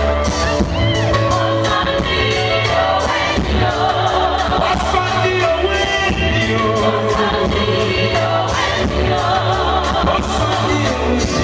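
Live amplified music: a male singer singing into a microphone over a band backing with a steady, pulsing bass beat.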